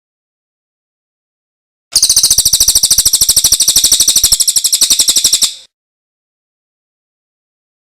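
A small songbird's loud, rapid trill, about a dozen evenly spaced notes a second. It starts about two seconds in, runs for about three and a half seconds, and stops abruptly.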